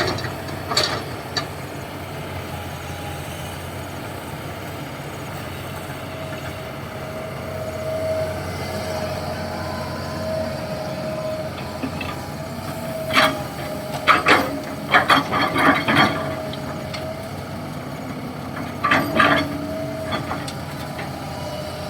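Diesel engines running steadily with a held whine, while an excavator bucket drops laterite soil and stones into a dump truck bed. This gives clusters of knocks and rattles about two-thirds of the way in and again near the end.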